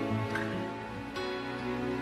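Background music: a slow, sustained instrumental passage between sung lines, with the held notes changing about a second in.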